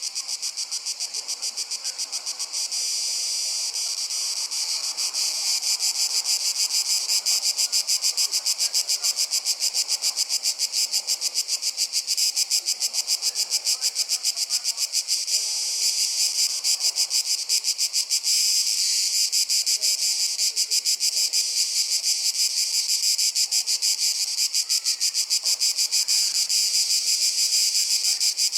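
Cicadas chorusing: a dense, high-pitched buzz made of rapid pulses, growing louder about five seconds in and then holding steady.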